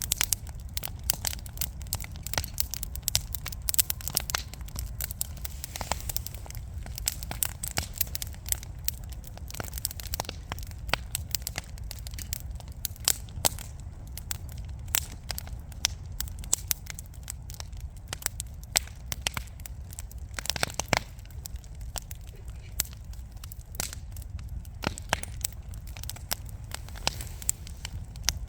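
Wood fire burning in a fireplace: dense, irregular crackles and pops from the burning logs over a steady low rumble of the flames.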